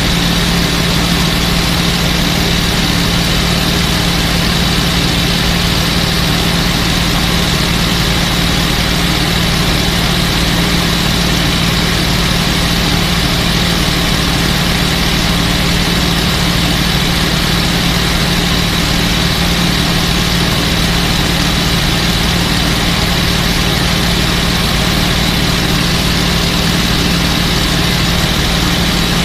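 P-51 Mustang's V-12 piston engine running steadily at cruise, heard from inside the cockpit as a constant drone under a loud rush of wind noise.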